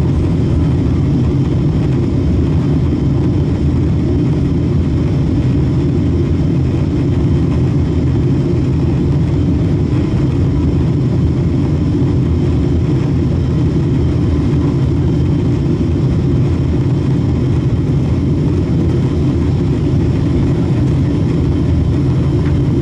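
Steady cabin noise of a Boeing 777-300 airliner in flight, heard inside the cabin: the jet engines and rushing airflow as a constant low rumble, with a faint steady tone above it.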